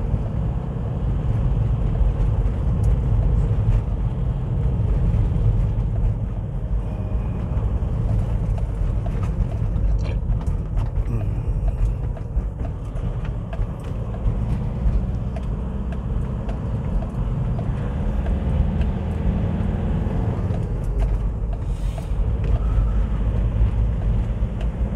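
Engine and road noise of a moving vehicle: a steady low rumble, with a few faint clicks.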